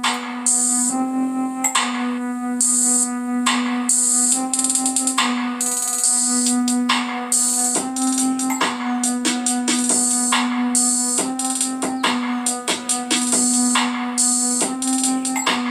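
Live Tech wooden tower speaker playing an electronic song with synth keyboard chords and a drum-machine beat, starting suddenly. The music is thin, with little bass.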